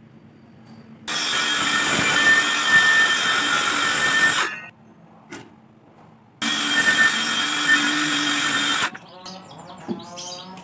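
An electric power tool runs in two steady bursts, about three and a half and two and a half seconds long, each starting and stopping abruptly.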